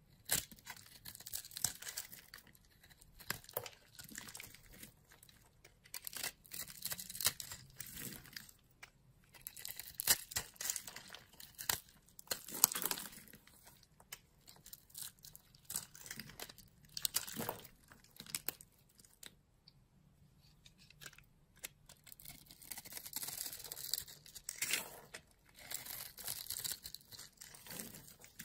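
A metal blade cutting and scraping through bars of dry soap, with small soap cubes crunching and crumbling off. The crisp strokes come in irregular runs, with a quieter pause about two-thirds of the way through.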